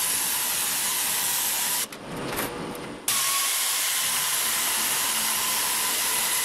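Air-powered sheet metal shear cutting 1 mm steel sheet: a steady hiss with a faint whine. It stops for about a second around two seconds in, then runs again.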